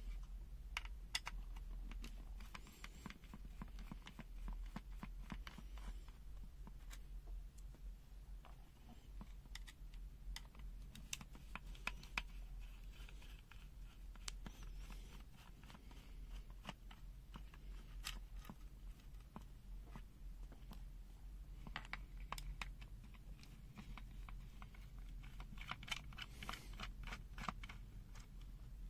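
Small plastic clicks, taps and scrapes of a handheld digital multimeter being opened and its parts handled by hand, irregular and bunched in a few quick runs, over a low steady hum.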